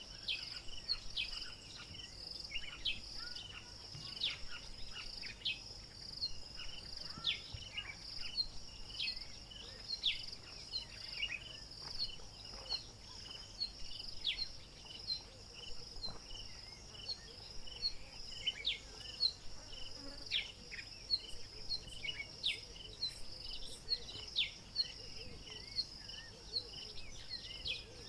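Bush ambience: a steady, high-pitched insect drone, with many short, falling bird chirps scattered irregularly over it.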